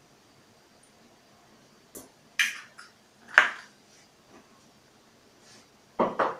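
Scattered short clicks and scrapes of eggshells and a ceramic mug being handled on a kitchen counter, the loudest about three and a half seconds in, then two quick knocks near the end.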